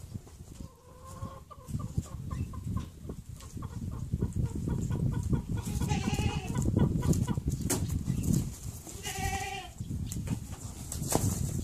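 Chickens clucking: a quick run of short clucks, then two longer drawn-out hen calls, over a steady low rumble.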